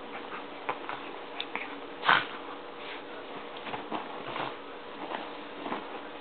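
Two miniature pinschers play-wrestling: an irregular run of short, noisy breathing and mouthing sounds and scuffles, with the loudest burst about two seconds in.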